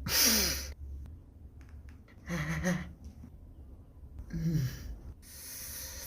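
A person's short breathy vocal sounds, four in all, spaced roughly a second and a half apart; some carry a brief falling pitch.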